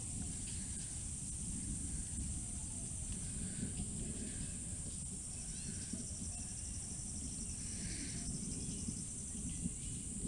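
Evening insect chorus: a steady high-pitched buzz, joined by a faster pulsing trill from about five to nine seconds in, over a low rumbling noise and a few faint chirps.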